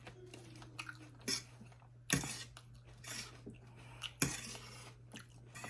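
Cutlery clinking against a plate three times while eating, with quiet chewing in between and a steady low hum underneath.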